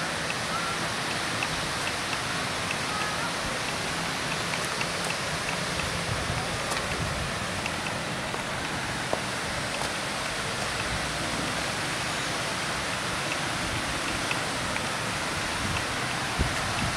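Steady rush of river water spilling over a barrage weir and down its sloping concrete face.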